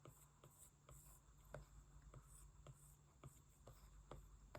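Faint, light ticks of a stylus tip tapping and dabbing on a tablet's glass screen while painting, about two to three a second, over a quiet hum.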